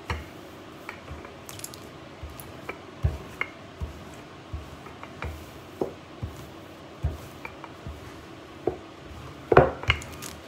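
Wooden rolling pin rolling out pizza dough on a countertop, giving irregular soft knocks and clicks as the pin and its handles bump the counter, with a louder knock near the end.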